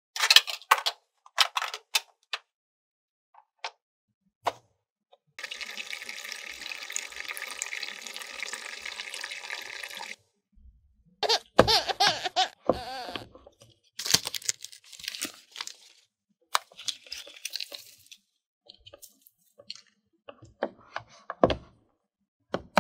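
Hard plastic toy pieces being picked up and set down, a run of sharp clicks and knocks, with a steady rushing noise for about five seconds in the middle.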